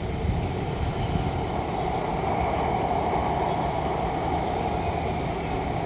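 Steady traffic noise: vehicles running past with a low rumble and a mid-pitched hum that grows a little louder about two seconds in.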